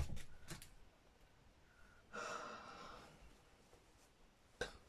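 Quiet handling of cotton fabric by hand on a cutting mat: soft taps at the start and near the end, and about two seconds in a soft hiss lasting about a second.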